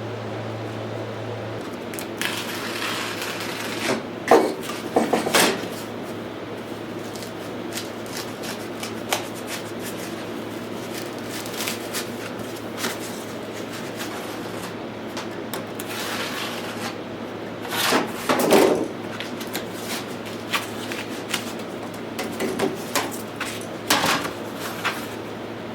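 Scattered knocks, clatters and rustling as parts and packing are handled on a workbench, the loudest clatters about four to five seconds in and again around eighteen seconds, over a steady low hum.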